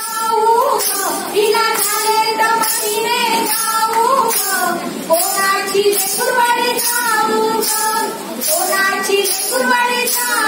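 A woman singing into a hand microphone, a high voice holding long notes, with a steady beat keeping time behind it.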